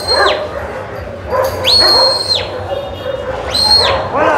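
Dogs barking and yelping, with three sharp, high, steady whistles of about half a second each, near the start, about two seconds in and near the end.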